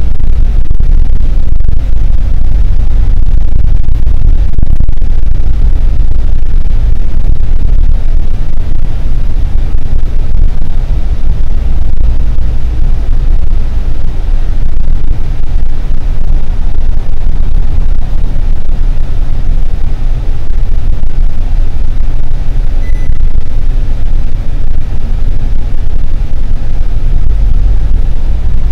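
Loud, steady low rumble of a bus in motion, heard from inside the bus: engine and road noise.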